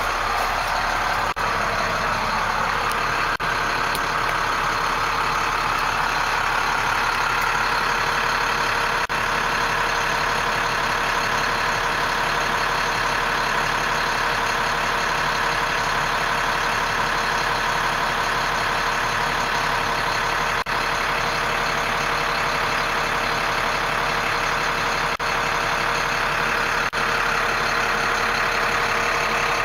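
International 4300 box truck's diesel engine idling steadily, heard from inside the cab as an even hum and hiss with a few faint clicks.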